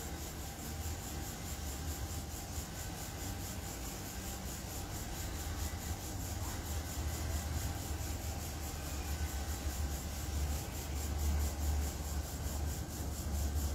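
Steady low rumble that wavers in strength, with a faint hiss above it; no distinct event.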